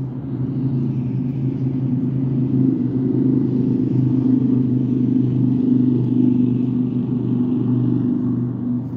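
Steady low engine drone with a constant deep hum, swelling slightly in the middle and easing near the end.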